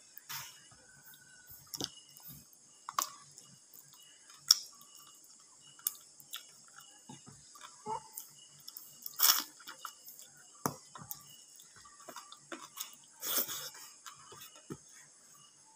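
Eating sounds of chicken curry and rice eaten by hand: irregular chewing and mouth clicks, with a few louder noisy sounds about nine and thirteen seconds in.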